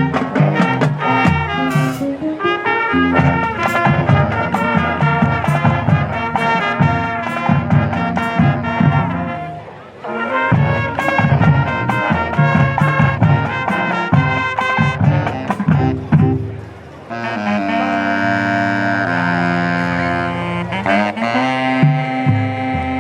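High school marching band playing: brass and saxophones over marching drums, with two short breaks in the music, then held brass chords without drums before the drums come back in near the end.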